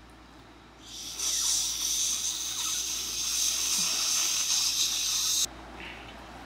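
A loud, high-pitched hiss lasting about four seconds: it fades in about a second in and cuts off suddenly.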